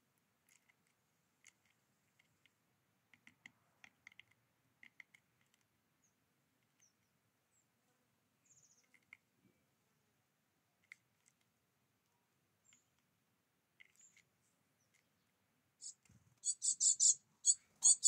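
Faint scattered clicks and taps of a young great tit pecking at sunflower seeds on a feeding tray. About two seconds before the end, a great tit breaks into a rapid run of loud, high chirps, about five a second.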